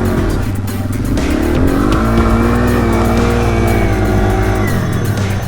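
Music mixed with a motorcycle engine running, its pitch rising and falling as it revs.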